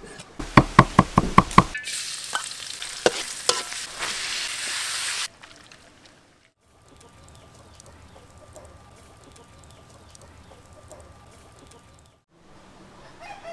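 A cleaver chops raw beef on a wooden board in a quick run of sharp strikes. Then comes a loud sizzle of beef frying in a pan, with the spatula scraping and knocking as it is stirred, and it cuts off abruptly. A much quieter, steady low noise follows.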